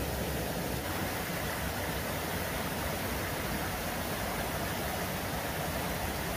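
Steady rushing of flowing water from a forest stream, an even noise with no breaks that thickens slightly about a second in.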